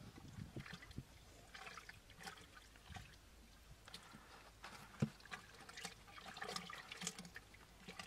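Hands scooping in wet mud and water, with faint scattered squelches and splashes and one sharper knock about five seconds in.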